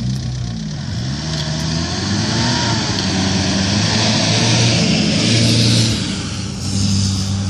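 A short-wheelbase 4x4 off-roader's engine revving up and down as it drives through deep mud ruts, then pulling more steadily, with a rush of tyre and mud noise about five seconds in.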